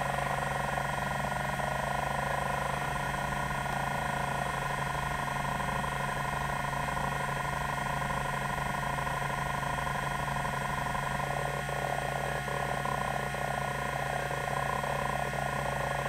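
TEAC SD-510 10 MB MFM hard drive seeking: its band stepper actuator buzzes as it steps the heads back and forth across the tracks, over the steady hum of the 3600 RPM spindle, with a few sharper clicks in the last few seconds.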